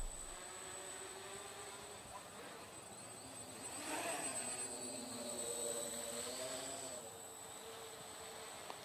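Micro quadcopter's small motors and propellers buzzing faintly, their pitch wavering up and down with the throttle and growing louder for a couple of seconds from about four seconds in.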